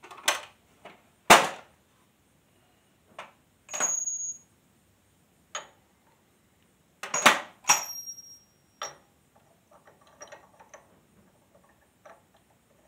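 Sharp metal clanks and clinks, about eight in the first nine seconds, some ringing briefly, as steel tools and parts are handled on a backhoe's hydraulic swing cylinder. After that come only faint small ticks.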